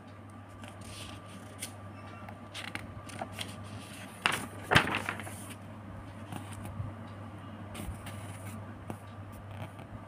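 Paper textbook page being turned and handled: soft rustling and scraping, with two sharp crackles of the page flipping about four and a half seconds in. A steady low hum runs underneath.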